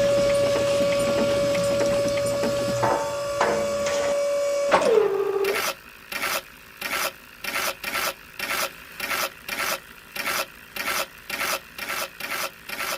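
Small electric motor of a homemade mini mixer running with a steady whine, which drops in pitch and stops about five seconds in. After it, repeated rasping scrapes follow, about two a second.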